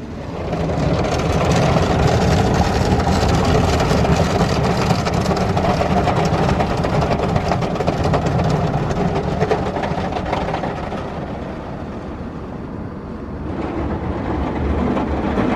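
Wesumat soft-touch car wash working over the car, heard inside the cabin: cloth brushes and water spray beating on the body and rear window in a loud, dense rush. It builds in the first second, eases a little about eleven seconds in, then builds again near the end.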